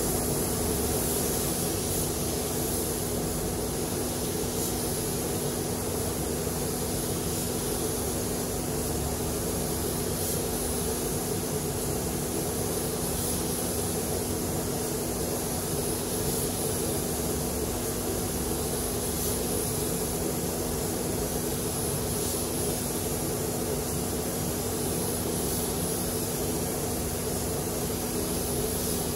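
Steady rush of air in a paint spray booth: the booth's fans running with a constant low hum, together with the hiss of a gravity-feed spray gun spraying paint onto a panel.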